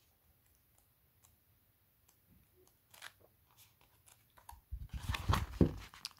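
Paper pages of a softcover book being turned, with a few faint ticks. Near the end comes a louder flurry of rustling and dull bumps as the pages are thumbed through quickly and the book is handled.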